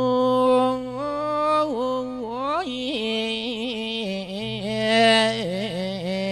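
A Buddhist monk's voice chanting a melodic Isan-style sermon (thet lae) through a microphone. He holds long sung notes joined by wavering, ornamented slides between pitches, and the line settles lower near the end.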